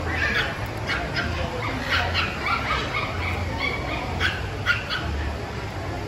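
Puppies yipping and barking in a string of short, sharp calls, over the low chatter of a crowd.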